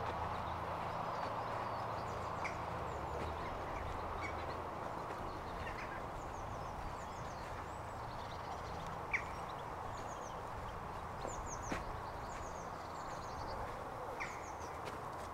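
Outdoor ambience: a steady background hum with small birds chirping faintly and often, high up, and a sharp click about nine seconds in.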